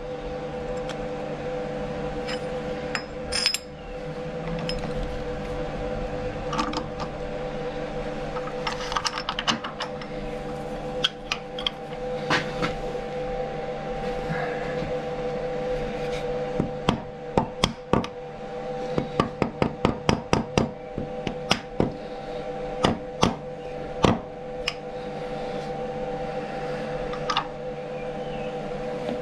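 Steady hum of a milling machine running, with sharp metal-on-metal clicks and taps as a steel bar and engineer's square are handled and set up in the machine vise. The taps come in quick runs in the second half.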